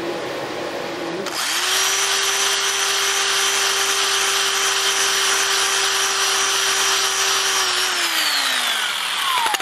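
Electric drill spinning a hone in a valve-guide bore of an air-cooled Porsche 911 aluminium cylinder head. After a short hiss, the drill starts about a second in, runs at a steady pitch, then is released and spins down with a falling whine near the end.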